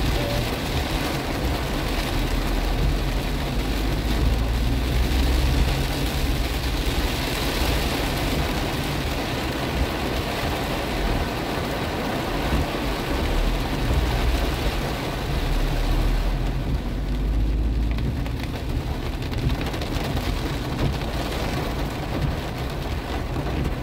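Rain falling on the roof and windscreen of a moving car, heard from inside the cabin over a steady low rumble of the car and its tyres on the wet road. The highs ease off for a couple of seconds about two-thirds of the way through.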